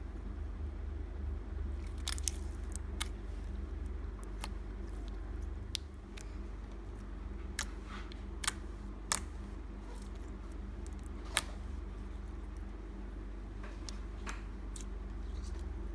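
Clear glitter slime being handled: scattered sharp pops and clicks, the loudest a little past the middle, over a steady low hum.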